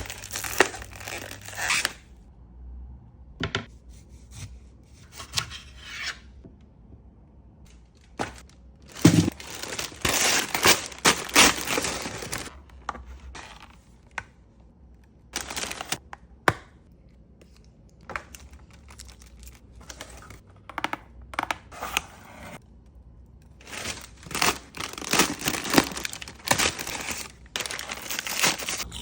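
Food packaging being torn open and crinkled in several bursts of rustling, crackling noise with quiet pauses between them.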